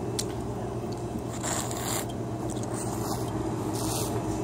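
A steady low mechanical hum, with a few brief scraping rustles, the loudest about a second and a half in.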